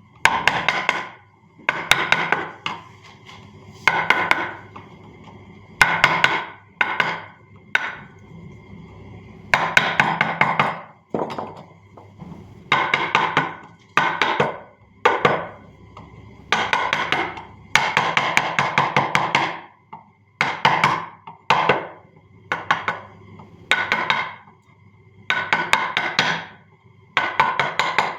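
Hand carving tools working on wood in repeated bursts, each a quick run of rapid knocks and scrapes, about one every second or two.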